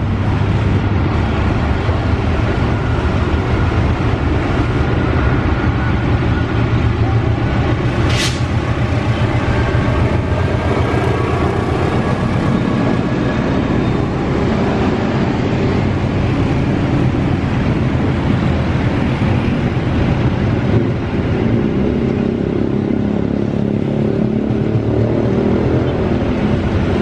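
Argo Sindoro executive passenger train passing close by: its KAI CC206 diesel-electric locomotive comes by first, then a long line of coaches keeps up a loud, steady rolling rumble on the rails. There is one brief sharp sound about eight seconds in.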